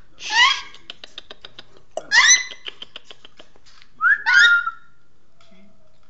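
Young African grey parrot giving three short, high-pitched whistling calls about two seconds apart, the last one longer. A run of soft, rapid clicks comes between the first two calls.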